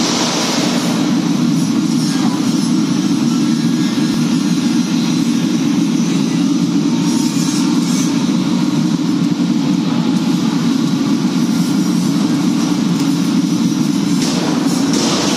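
Steady low mechanical drone of machinery running, unchanging throughout.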